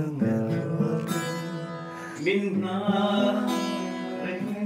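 Acoustic guitar playing ringing chords, with a new chord struck about two seconds in.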